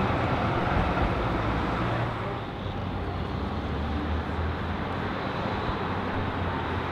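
City street traffic noise: a tram and cars passing on the road, with a heavy low rumble. About two seconds in, the sound changes to a quieter, steadier hum of idling engines and traffic.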